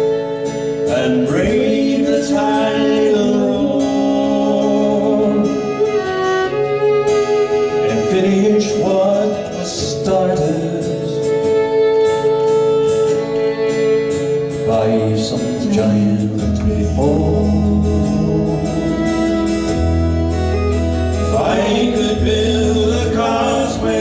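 Live folk song: a man singing with a bowed violin accompanying him over a steady held drone note. Low bass notes join about two-thirds of the way through.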